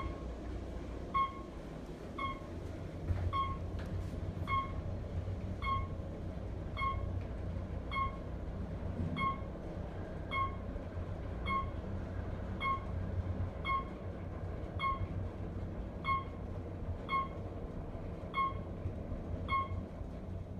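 Otis traction elevator car travelling down with a steady low rumble, while a short electronic beep sounds about once a second, nineteen times: the floor-passing tone marking each floor as the car descends.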